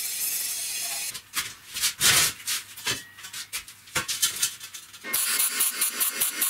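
Angle grinder grinding steel with a steady hiss for about a second, then scattered knocks and scrapes as metal pieces are handled. About five seconds in a welding arc starts crackling steadily.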